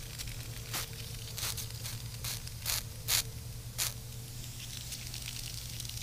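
Air leaking from a tire through a failed Flex Seal plug and bubbling up through soapy water: soap bubbles crackling and popping at irregular moments, over a steady low hum. The bubbling is the sign that the cured Flex Seal, softer than the tire rubber, cannot hold the pressure.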